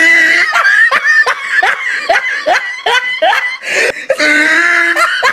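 A person laughing hard: a long drawn-out note, then a quick, regular run of short ha-ha sounds, then another drawn-out note near the end.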